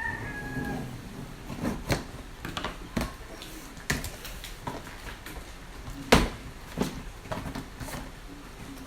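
Cardboard printer box being opened by hand: irregular knocks, clicks and scrapes of flaps and packing pieces being handled, the loudest knock about six seconds in.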